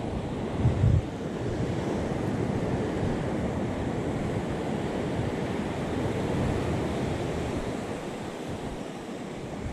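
Surf washing onto a sandy beach, with wind buffeting the microphone; a strong gust rumbles on the microphone just under a second in.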